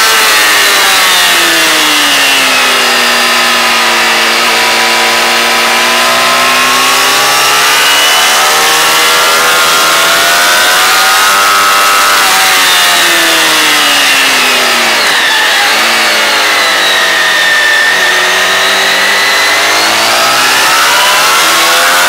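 Motorcycle engine at racing speed, picked up by the onboard camera, its revs falling and climbing several times as the bike brakes into corners and accelerates out, over steady wind rush.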